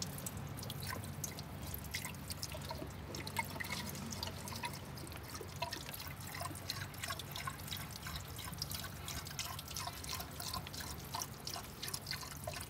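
Water dripping and splashing in quick irregular drops as a car's cooling system is flushed: water poured into the radiator runs out through an opened hose. A steady low hum runs underneath.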